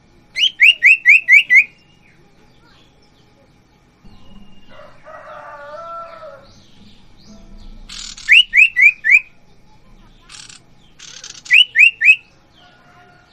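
Caged sirtu (cipoh, an iora) calling: loud runs of quick, rising whistled notes, six in a row at the start, four about eight seconds in and three near the end. A lower, rougher call comes about five seconds in, and short hissy bursts fall between the later runs.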